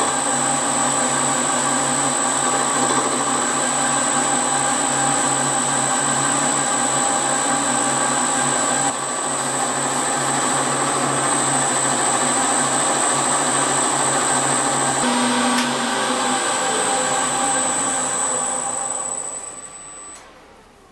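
Warco milling machine running with a steady high whine and gear hum as an end mill cuts away the bearing-holder boss on a cast end plate. Near the end the spindle is switched off and the machine runs down to a stop.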